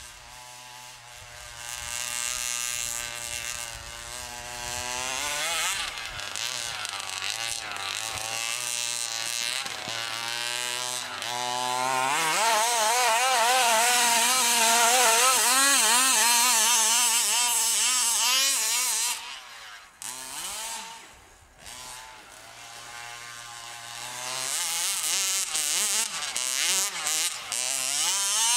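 27cc two-stroke gas engine of a large-scale FG RC truck revving up and down again and again under throttle, a high buzzing whine. It is loudest in the middle and drops off briefly about two-thirds through before revving up again.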